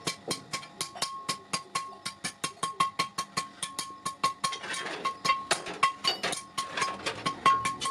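Hammer blows on metal at the anvil, a fast steady run of about five or six strikes a second, each blow ringing with the same clear tone.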